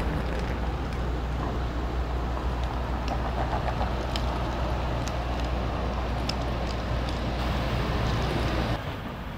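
City street traffic noise with a steady low rumble and a few faint clicks; it cuts off abruptly near the end.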